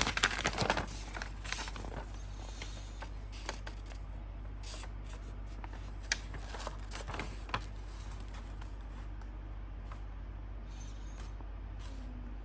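Paper rustling as an instruction booklet is handled and its pages turned, with a cluster of crinkles in the first two seconds and a few scattered ones later, over a steady low hum.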